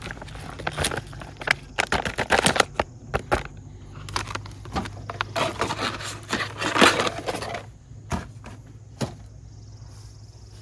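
Crinkling packaging and clicking, knocking utensils being handled in irregular bursts that thin out about eight seconds in, over a steady low hum.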